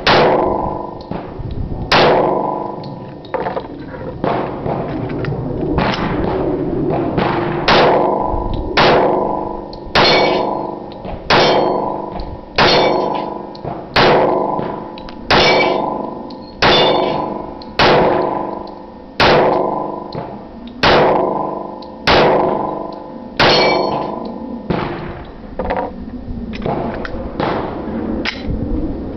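Glock 21 .45 ACP pistol fired in slow, evenly paced shots, about one every second and a half. Each sharp report is followed by a ringing metallic tail.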